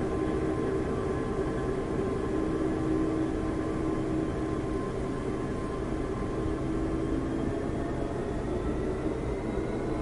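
Diesel locomotive engine running steadily with a low rumble and several held tones. A few of the higher tones rise slightly near the end.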